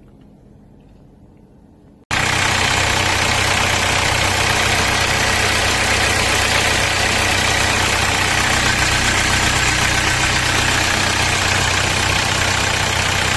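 Hyundai Santa Fe diesel engine idling steadily, heard loud and close with a strong hiss over the low engine note; it cuts in suddenly about two seconds in.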